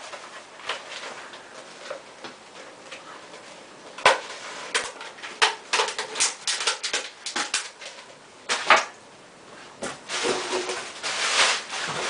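Packaging being handled: irregular crinkling and sharp clicks as items and their wrapping are moved about, sparse at first and growing busier from about four seconds in.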